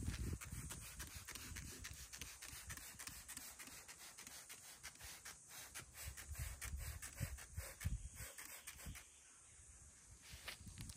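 Hand scrubbing of a metal boat-trailer frame with a sponge scourer: a fairly faint run of quick rubbing strokes, over an uneven low rumble.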